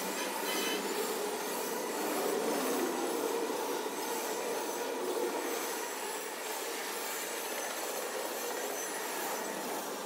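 Double-stack intermodal freight train passing, its container-laden well cars rolling by with steady wheel-on-rail noise.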